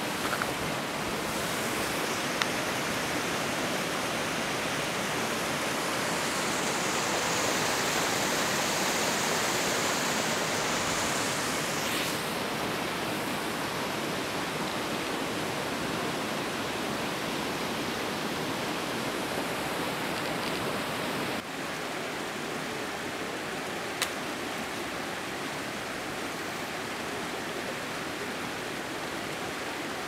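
Steady rushing of a snowmelt mountain creek and waterfall. It drops a little in level about two-thirds of the way through, with a couple of faint clicks.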